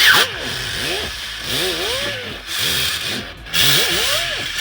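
Repeated back-and-forth scraping or scrubbing by hand, in strokes a little under two a second, each stroke rising and falling in pitch, with bursts of hiss.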